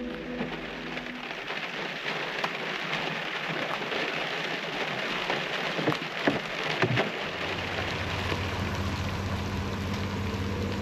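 Steady rain falling, with scattered louder drops striking a surface. A low steady hum comes in about two-thirds of the way through.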